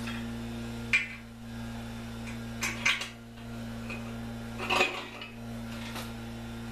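Three short bursts of sharp metallic clinks and rattles, a couple of seconds apart: hand tools and metal parts knocking against metal at an engine on its stand. A steady electrical hum runs underneath.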